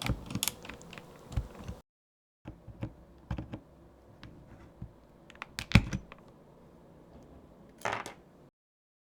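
Small plastic clicks and ticks at uneven spacing from keycaps and switches being pulled out of an Ajazz AK820PRO mechanical keyboard, with a louder clatter about six seconds in and a short rattle near the end. The sound drops out to dead silence twice.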